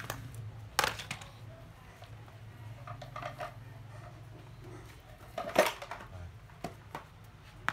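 Clatter of hard plastic cordless power tools being picked up and moved, with a few sharp knocks: one about a second in and the loudest about five and a half seconds in. A low steady hum runs underneath.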